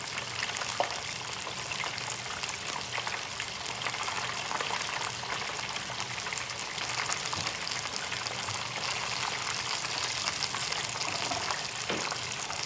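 Beer-battered shrimp deep-frying in hot oil: a steady crackling sizzle, nearly done.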